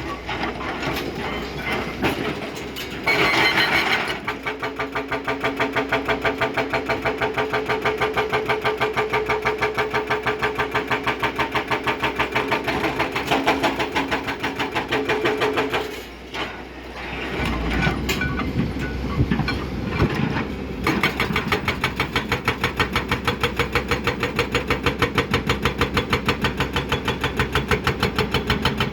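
Excavator-mounted hydraulic breaker hammering in a rapid, even rhythm. It stops briefly a little past the middle, then starts again.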